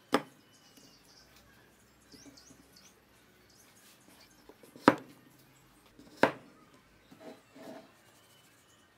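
Pine boards of a mitered joint knocking sharply against a wooden workbench three times as they are handled and set down, with softer rubbing of wood on wood near the end. Faint bird chirps in the background.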